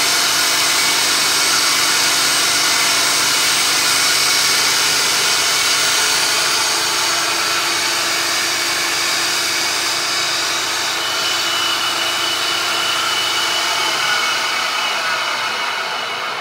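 Milling machine spindle turning a cutter that machines the aluminium pump bore of a 6L80/6L90 transmission case. It makes a steady, high-pitched cutting whine with constant tones, eases slightly about six seconds in, and starts to fade near the end.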